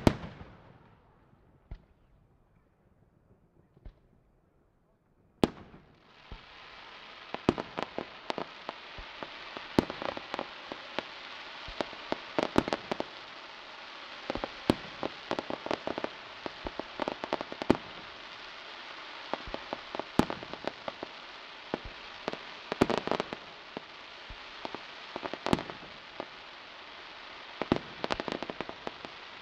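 Aerial firework shells bursting: a loud bang at the start, then a few quieter seconds and another bang. From about six seconds in comes a dense, continuous crackle, punctuated by many sharp bangs.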